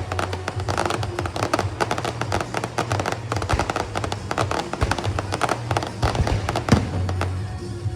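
Fireworks going off in a dense, rapid string of crackling pops, many a second, with no pause.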